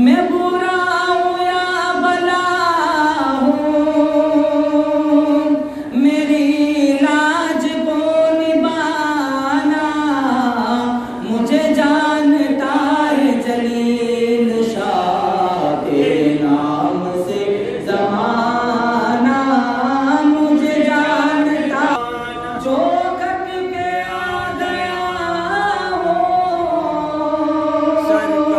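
A man singing a devotional chant unaccompanied into a microphone and loudspeaker, in long held notes that glide up and down.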